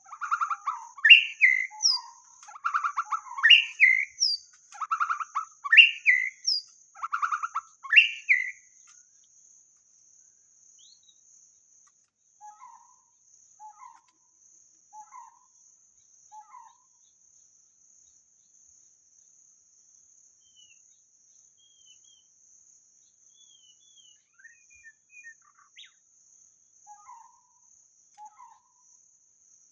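White-rumped shama singing: a run of loud whistled phrases, about one a second, that stops after about eight seconds, followed by quieter, scattered short notes and whistles. A faint steady high-pitched hiss runs underneath.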